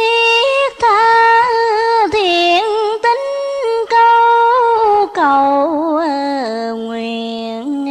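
A single voice chanting a Vietnamese poem in a slow melodic recitation, stretching each syllable into long wavering notes that step up and down. It drops to a low held note near the end.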